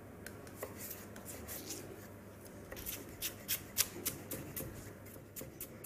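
Kitchen knife finely chopping celery on a chopping board: light, quick taps of the blade, scattered at first and coming about three a second from about halfway through.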